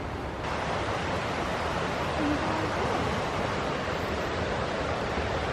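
Steady rushing of flowing water, stepping up a little just under half a second in.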